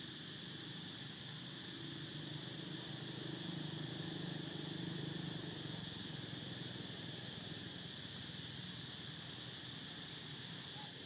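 Outdoor ambience of a steady, high-pitched insect drone. A low hum swells about two seconds in and fades back a few seconds later.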